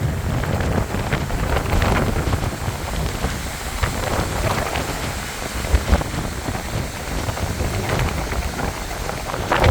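Hurricane rain and gusting wind: a loud, steady wash of rain noise with many short patters, over a low rumble of wind buffeting the microphone.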